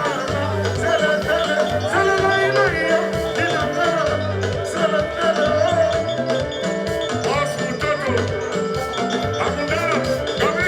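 Live Congolese rumba (soukous) band music, with a pulsing bass line under bending melodic lines higher up.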